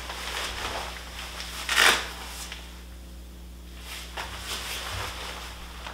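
Rustling of synthetic waterproof rain-pant fabric as the leg cuff is pulled in and cinched tight at the ankle, with one short, louder scrape of the fabric and cuff tab about two seconds in.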